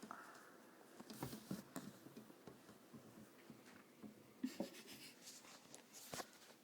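Faint, irregular scratching with small taps and clicks.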